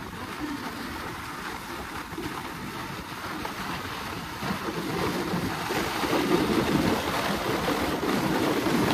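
Plastic sled sliding fast down a snow slope: a steady rushing noise of the sled on the snow with wind buffeting the microphone, getting louder about halfway through.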